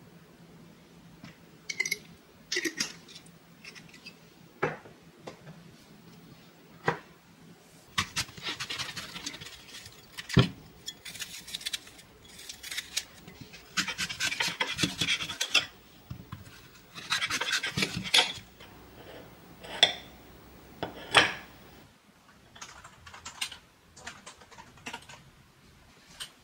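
Kitchen food-prep sounds: utensils clinking against ceramic dishes and a knife cutting through an apple on a plate, heard as scattered clicks and a few longer scraping stretches.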